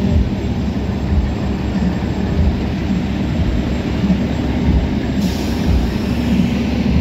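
Heavy diesel trucks running close by, a steady low rumble. A faint hiss joins about five seconds in.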